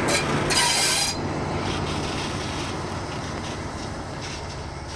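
Railway locomotive on the move: a loud high-pitched hiss with a squealing tone cuts off about a second in, leaving a steady low rumble that slowly fades away.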